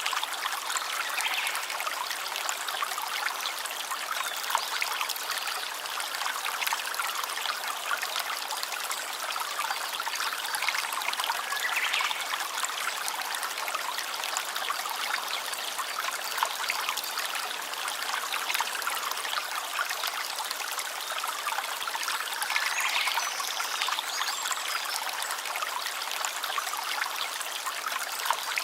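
Shallow stream trickling and babbling steadily over stones, an even rush of water with a fine splashing crackle.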